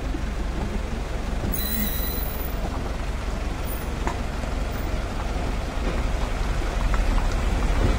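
Car rolling slowly over a potholed, waterlogged road, heard from inside the cabin: a steady low rumble of engine and tyres. A brief higher-pitched sound comes about two seconds in.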